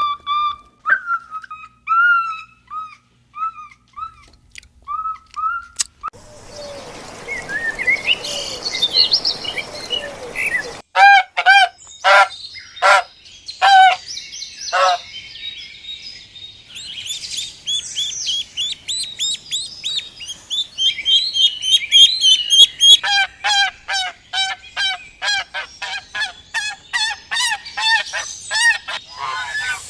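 Birds calling: whistled chirping notes at first, then from about a third of the way in many short repeated honking calls, which become dense toward the end.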